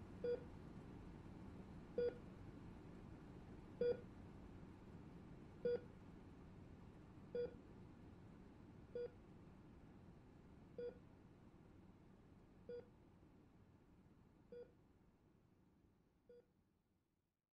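Hospital patient monitor beeping: ten single short beeps about two seconds apart, each fainter than the last until they die away, over a faint hiss that also fades out.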